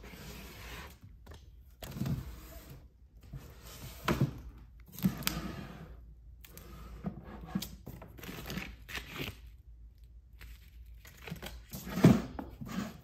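Woven wicker storage baskets sliding in and out of shelf cubbies: the weave scrapes and creaks in irregular stretches, with a few knocks, the loudest near the end as a basket is pushed back in.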